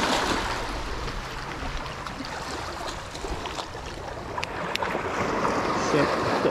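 Seawater washing over and between black volcanic shore rocks, a steady rushing wash, with two light clicks about four and a half seconds in.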